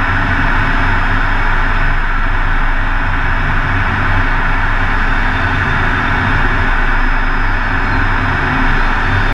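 Steady cockpit noise inside an F-16 in flight: engine and airflow noise through the canopy, with a constant low hum underneath.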